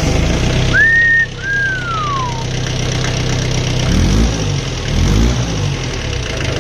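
Old Kubota tractor's diesel engine running just after a cold start on glow plugs, with a steady diesel clatter; its note wavers up and down about four to five seconds in. A short two-note whistle, the second note falling, sounds about a second in.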